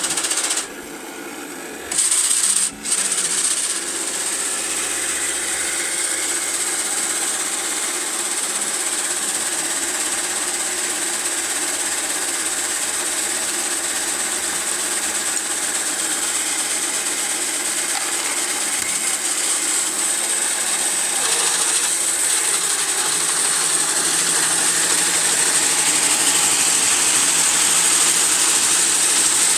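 Technofix 315 Gigant tin toy construction site running: its mechanism whirs and its small tin parts rattle steadily, dropping off briefly about a second in before carrying on.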